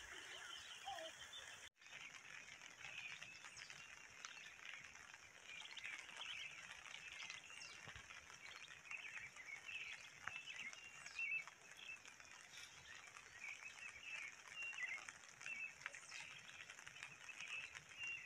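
Faint birdsong outdoors: many short chirps and twitters from several birds, scattered throughout over a steady high hiss. The sound cuts out for a moment about two seconds in.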